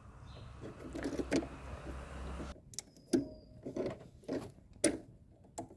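Light clicks and knocks of handling, several about half a second apart, as multimeter test probes are set against a fridge's defrost heater. A faint hiss and hum run under the first half.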